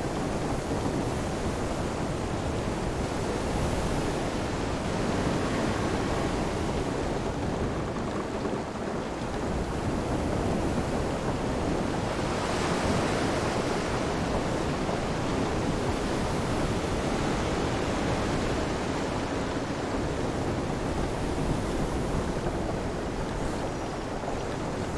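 Storm ambience: a steady rush of wind, rain and surf, swelling a little about five seconds in and more strongly around twelve to thirteen seconds.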